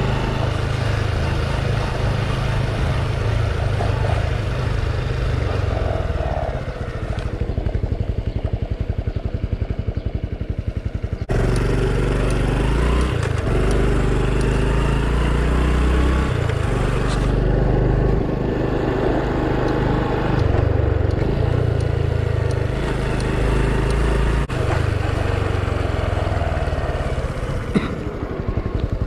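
Honda Super Cub's single-cylinder four-stroke engine running while ridden, its pitch shifting up and down with throttle and speed, with a sudden jump in the sound about eleven seconds in.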